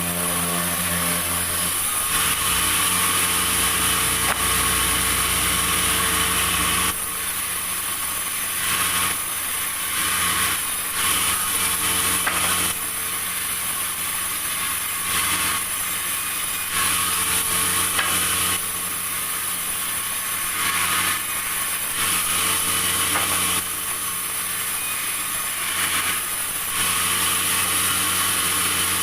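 Sawmill running: a steady machine hum under the hiss of the saw cutting wood. The sound shifts between louder and slightly quieter stretches every few seconds.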